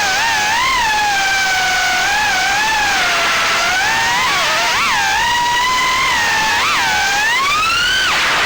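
Brushless motors of a 3-inch FPV quadcopter (GEPRC 1206 4500KV motors spinning Gemfan 3028 props) whining, the pitch swooping up and down quickly with the throttle and climbing sharply near the end, over a steady rush of wind noise.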